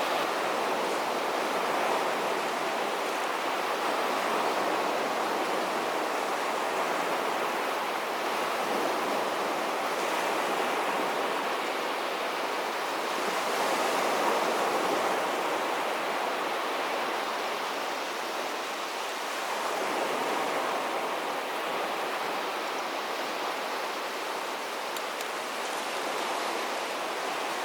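Sea waves washing onto a beach: a steady rush of surf that swells gently every few seconds.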